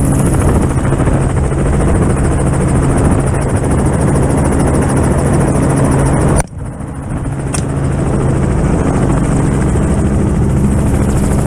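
Helicopter engine and rotor running steadily, heard from inside the open-door cabin. About six seconds in, a single sharp crack from a Smith & Wesson M&P10 rifle in 6.5 Creedmoor makes the sound drop out suddenly and then swell back over a second or so.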